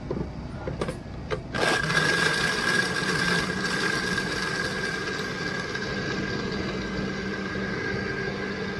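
A few clicks, then a small motor starts abruptly about a second and a half in and runs steadily with a thin high whine over a lower hum.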